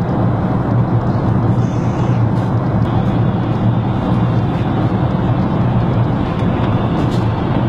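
Steady cabin noise of a jet airliner in flight: an even rushing noise with a low hum underneath.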